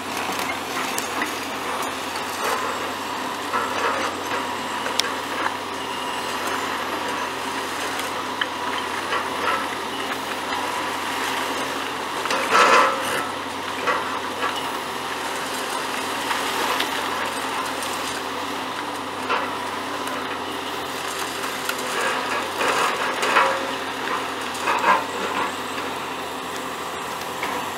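Heavy tracked hydraulic excavators running steadily during bridge demolition, with irregular crunches and knocks of concrete debris being broken and moved, loudest about halfway through and again near the end.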